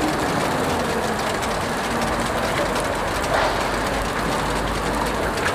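Steady sizzling of hotteok batter frying in oil on a flat metal griddle, over a low rumble of street noise.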